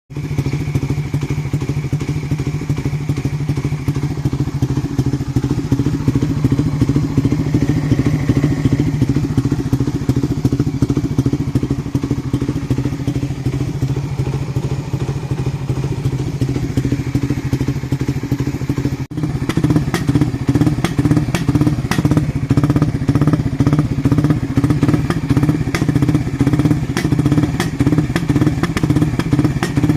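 Suzuki Raider 150 Fi's single-cylinder four-stroke engine idling steadily through an aftermarket black canister exhaust with no catalytic converter. After a sharp break about nineteen seconds in, it comes back louder and more pulsing, with crisp ticks.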